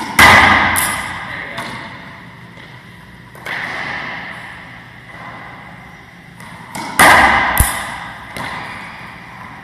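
Racquetball serves echoing in an enclosed court: a sharp smack of racquet and ball off the front wall, followed by a few quieter bounces, twice, about seven seconds apart. A softer single bounce comes in between as the ball is dropped for the next serve.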